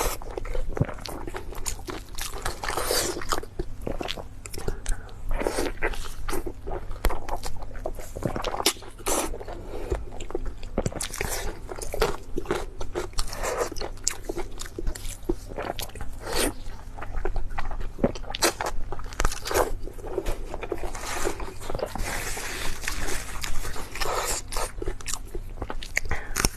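Close-miked chewing and biting of food, with many irregular sharp crunches.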